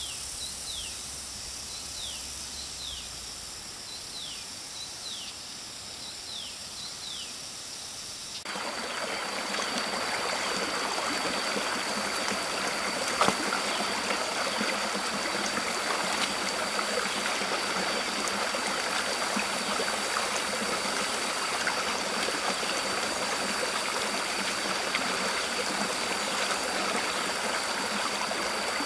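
Shallow rocky stream running over a small cascade: a steady rush of water that starts suddenly about eight seconds in, with a thin steady high tone above it. Before that, quieter open-air ambience with a run of short falling whistles.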